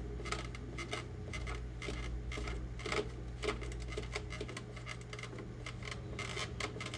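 A cloth rag rubbing and wiping over a plastic armor piece, making irregular light scratches and clicks, over a steady low hum.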